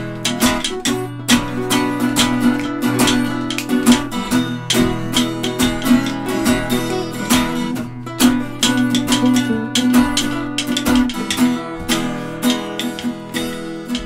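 Background music: an instrumental passage of strummed and picked acoustic guitar over a steady low bass line, with no singing.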